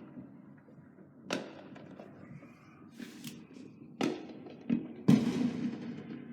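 Fireworks going off: about five sharp bangs spread over several seconds, the loudest about five seconds in, each trailing into a low rumbling echo.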